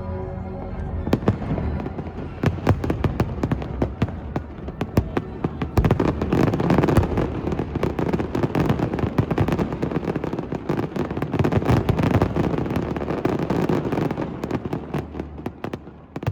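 New Year's fireworks going off in a dense barrage: rapid crackles and sharp bangs over a constant rumble, starting about a second in and thickest through the middle.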